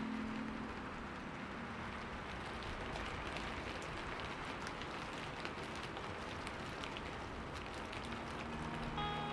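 Fire crackling: a steady soft hiss with scattered small pops and snaps. The last piano notes fade out early on, and new piano notes come in about eight seconds in.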